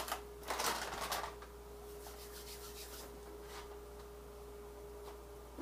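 Plastic bag of sweet potato fries rustling and crinkling as it is handled, about half a second to a second in. A steady faint tone holds underneath and stops near the end.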